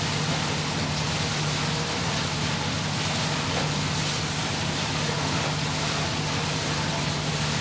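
Steady low hum of a boat engine running, over an even hiss.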